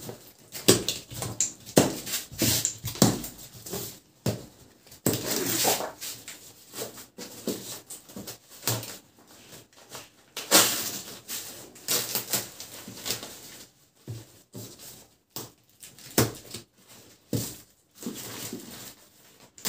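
Plastic packing straps being cut and pulled loose around a woven plastic sack, giving irregular clicks and snaps with crinkly rustling of the sack. There are louder bursts of rustling about five and ten seconds in.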